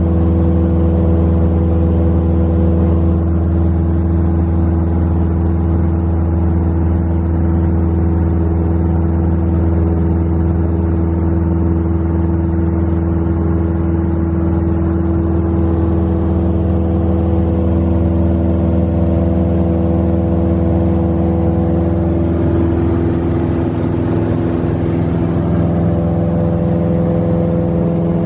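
A light aircraft's engine and propeller droning steadily, heard from inside the cabin in flight. The pitch of the drone shifts slightly about three-quarters of the way through.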